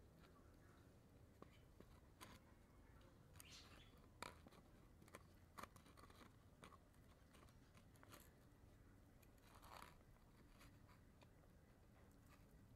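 Faint, irregular crunching and gnawing of a schnauzer chewing a twisted rawhide chew, with scattered sharp clicks of teeth on the chew and a longer crackle near the end.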